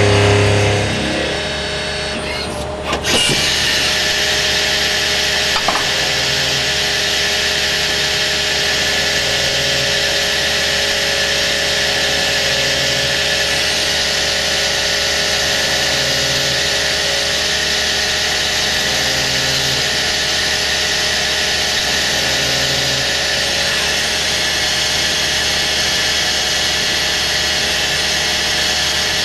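CNC lathe milling a turned part with a spinning live tool: a steady machining whine and hiss, with a low hum that swells and fades about every three seconds. The sound shifts briefly about three seconds in, then runs on evenly.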